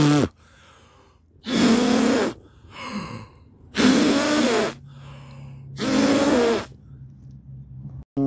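A person's loud, breathy gasps, repeating about every two seconds.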